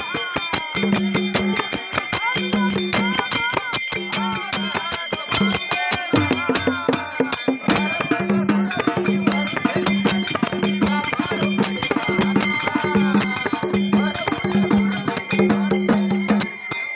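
A woman singing a Kannada devotional folk song over a microphone, backed by a hand-beaten skin drum with small jingle bells on its rim, which keeps a steady beat, and continuous jingling of metal bells.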